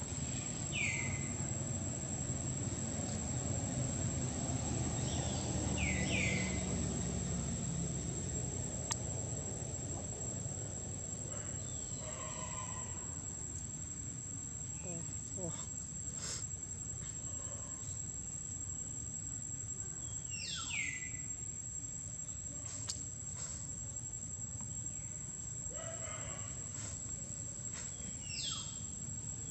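Insects droning steadily at a high pitch, with a few short high calls that slide downward in pitch and a low rumble that fades after about eight seconds.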